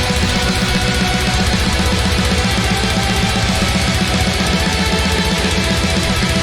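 Heavy metal music with guitars over a fast, even low-end beat.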